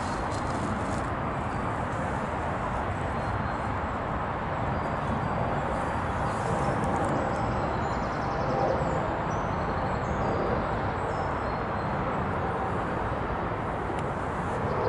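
Steady rushing background noise with a few faint, short, high bird chirps.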